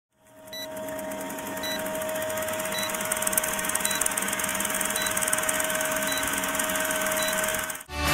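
A motor running steadily, most likely the fishing boat's engine: a steady hum over a rushing noise, with a faint tick about once a second. It fades in at the start and cuts off just before the end.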